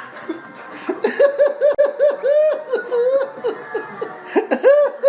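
High-pitched laughter: after a quieter first second, a quick run of short laughing notes, about four or five a second, loudest near the end.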